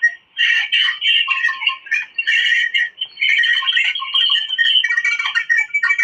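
Bird squawking and chattering in rapid, broken runs of harsh, high calls with short pauses between them.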